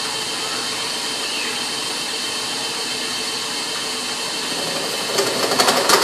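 Oliver lathe spinning a thin brass banjo tone ring while a hand-held tool cuts out its center, a steady machine hum with metal scraping. The cut gets louder and rougher with rapid chatter near the end.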